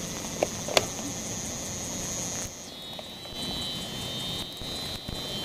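Wind rushing over the camcorder microphone, with a steady high-pitched whine that steps down in pitch about halfway through and two sharp clicks in the first second.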